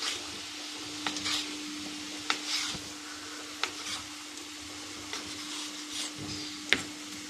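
A knife cutting bacon on a cutting board, giving short sharp knocks at irregular intervals, the loudest near the end. Beneath it, scallions and sliced mushrooms sizzle steadily as they fry in olive oil in a pan, with a steady low hum.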